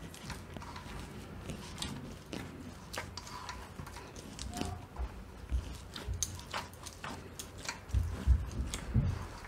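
Hands kneading soft flour dough in a stainless steel bowl: sticky squelching with scattered light clicks, and heavier thumps of the dough pressed against the bowl near the end.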